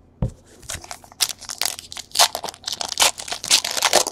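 Foil trading-card pack wrapper being crinkled and torn open by hand: a light knock near the start, then a dense run of sharp crackles and rips from about a second in.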